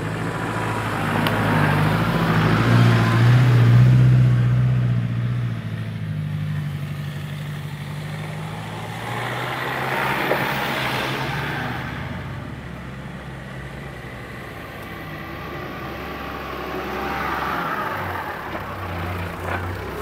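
Land Rover Defender's engine running as it drives slowly over a rutted off-road track. The engine note swells and eases, loudest a few seconds in, with smaller rises around the middle and near the end.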